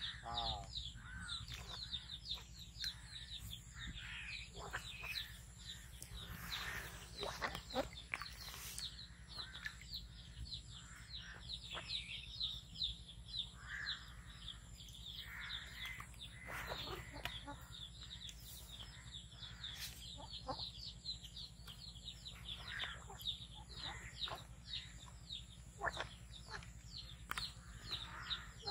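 Birds chirping quickly and without pause, high and repetitive, with a few louder, lower calls scattered through.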